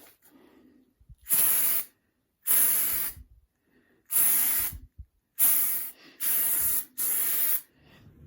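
Aerosol can of Rust-Oleum undercoating spraying in six short bursts of hiss, each about half a second long, with brief pauses between them. The last three bursts come close together.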